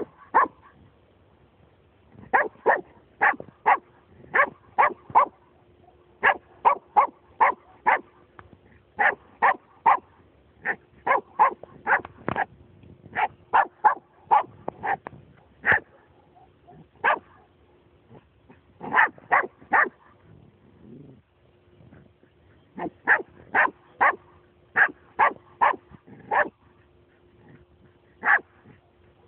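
Nova Scotia Duck Tolling Retriever barking at a cat: sharp barks in quick runs of several at a time, with short pauses between the runs.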